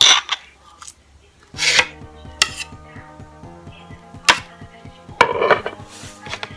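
Several sharp clinks and knocks of kitchen items being handled, the loudest near the start and about five seconds in, over quiet background music that comes in about a second and a half in.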